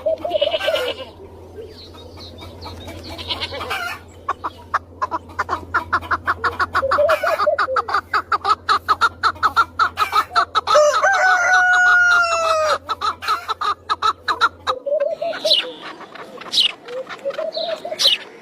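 Chickens clucking in a rapid run of short calls, then one long drawn-out call about twelve seconds in, with more scattered calls near the end.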